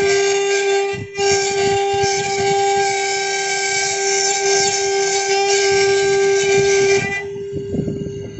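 CNC router spindle running with a steady high whine over a loud hissing cutting noise. The hiss breaks off briefly about a second in, then stops near the end while the spindle whine continues.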